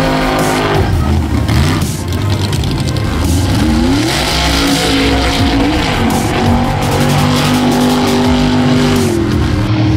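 Mega truck engines at high revs as the trucks race through a mud pit, the engine pitch climbing and dropping several times as the throttle is worked.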